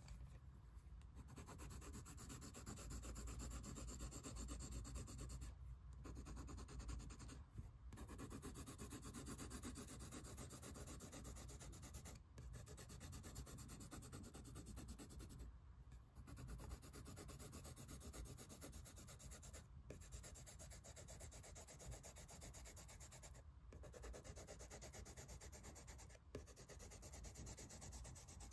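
Green colored pencil scratching on sketchbook paper in quick back-and-forth shading strokes, with several brief pauses.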